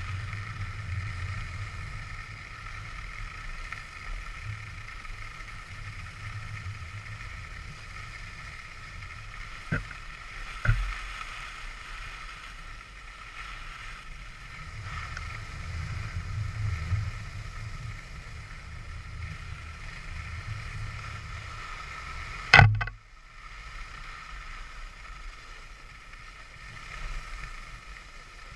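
Skis running on groomed snow: a steady scraping hiss with low wind rumble on the camera microphone. Two short knocks come around ten seconds in, and a louder sharp knock comes near the end, after which the rumble briefly drops.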